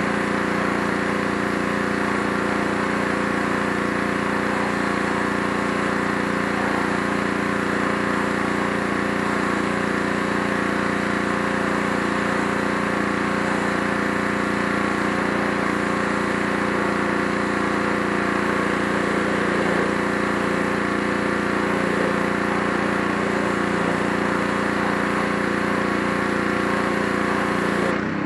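Gas-engine pressure washer running steadily, its engine drone under the hiss of the high-pressure spray hitting the deck boards. Near the end the spray hiss stops and the engine note shifts.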